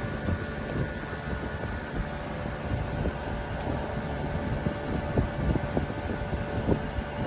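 Electric shop fan running with a steady whir, with scattered light clicks and taps of hand tools on the rear axle.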